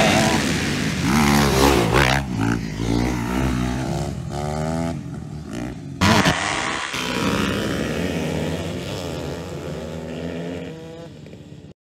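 Dirt bike engines revving up and down as the bikes ride the track and take a jump, the pitch rising and falling with the throttle. The sound changes suddenly about six seconds in, then fades and cuts off just before the end.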